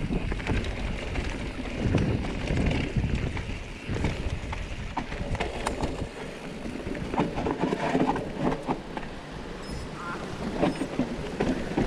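Mountain bike tyres rolling over leaf litter, dirt and roots on a narrow forest trail, the bike rattling, with scattered sharp knocks as it rides over the roots.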